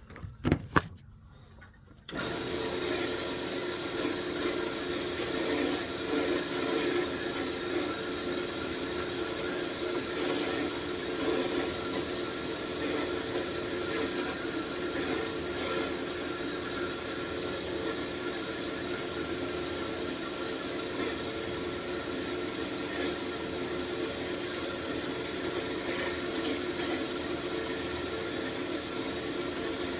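A couple of short knocks, then a wood lathe is switched on about two seconds in and runs steadily, spinning a wax-coated walnut wand while it is burnished with denim.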